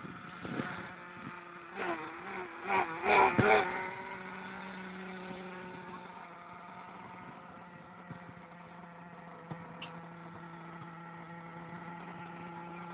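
Steady buzzing drone of a running engine, holding one pitch from about four seconds in, after a few short louder wavering sounds at the start.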